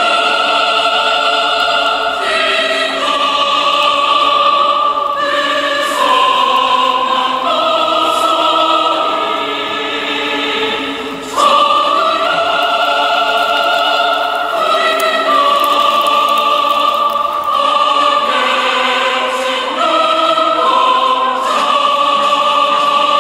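Background choral music: a choir singing slow, long-held chords that change every second or two, dipping briefly about halfway through before coming back in louder.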